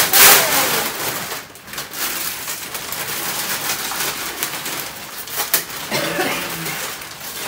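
Plastic sheeting rustling and crinkling as it is pulled and gathered by hand, loudest just after the start.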